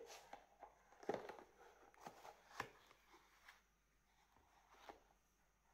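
Faint handling sounds of a cardboard slipcover and DigiBook disc case: scattered soft taps and rustles, the clearest about a second in and again about two and a half seconds in.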